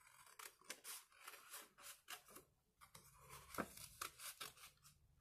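Scissors cutting a small shape out of card: faint, irregular snips.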